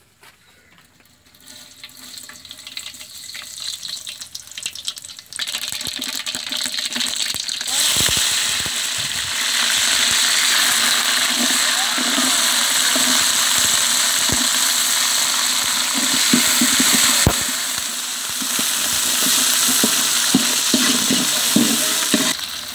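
Hot oil in a large aluminium pot sizzling as spices are tempered: faint crackling of seeds at first, then a loud steady sizzle from about eight seconds in, once red chillies, curry leaves and shallots are in the oil.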